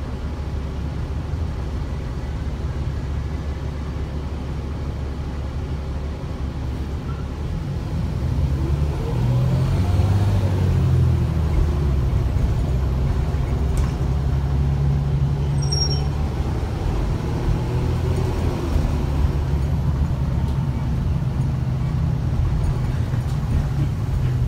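Gillig BRT transit bus under way, heard from inside the passenger cabin: a steady low engine and road rumble that grows louder about eight seconds in, with a gliding whine. A brief high squeak comes about halfway through.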